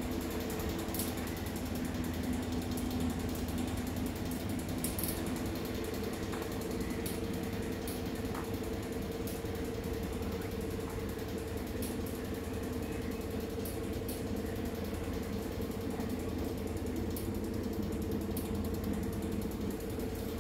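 Hundreds of silkworms chewing mulberry leaves on a rearing bed: a dense, steady crackling rustle with scattered small clicks. A steady low hum runs underneath.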